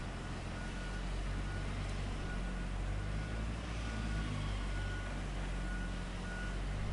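Large diesel bulldozer engine running steadily with a low hum, over a broad mechanical noise.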